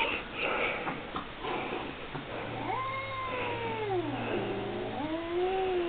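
Domestic cat giving long, drawn-out meows: one call about two and a half seconds in that rises, holds and falls away, then a second that starts low near the end and rises.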